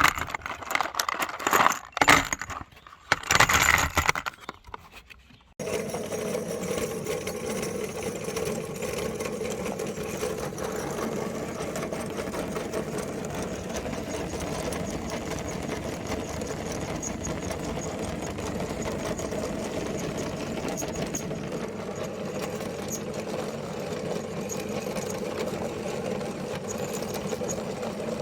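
Electric meat grinder running steadily, grinding chalk, a constant motor hum. It starts about five and a half seconds in, after a few seconds of irregular loud crunching and knocking.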